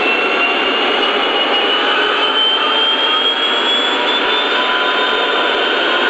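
Lionel O-scale model diesel locomotive running on the layout: a steady rushing of its motors and wheels on the track, with a thin whine that rises slowly in pitch.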